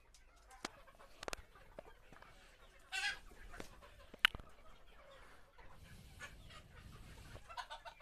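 A flock of Sonali chickens clucking sporadically and softly, with one louder call about three seconds in and a few sharp clicks scattered among the calls.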